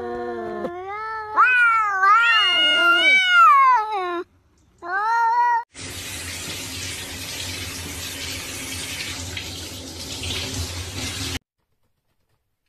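A cat meows: one long meow that rises and falls in pitch, then a short one. Then a handheld shower sprays water with a steady hiss for about five seconds, and the sound cuts off suddenly.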